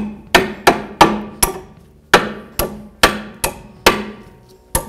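Hammer tapping on a rust-seized parking brake pivot clamped in a vise, striking the two-piece metal pivot back and forth to break it free. About ten sharp strikes, each ringing briefly, with a short pause after about a second and a half.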